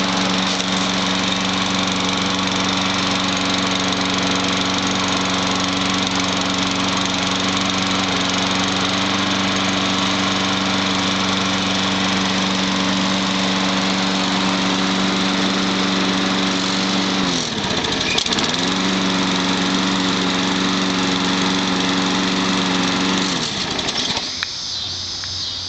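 MTD walk-behind lawn mower's small four-stroke engine running at a steady speed. About two-thirds of the way through its speed drops sharply, nearly stalling, and quickly recovers. Near the end the engine shuts off, leaving a steady high-pitched buzz.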